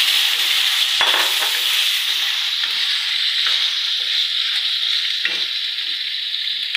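Boiled beef pieces sizzling in hot oil with ginger-garlic paste in an iron karahi, stirred with a wooden spatula. The frying gives a steady hiss, and the spatula scrapes against the pan about a second in and again past five seconds.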